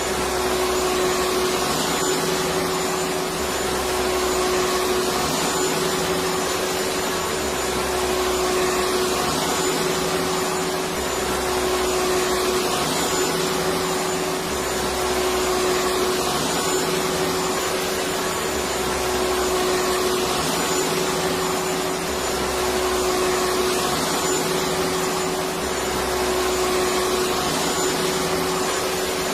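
Electric vacuum cleaner running continuously: a steady motor hum over a broad hiss of rushing air, with a low rumble that swells and fades about every three and a half seconds.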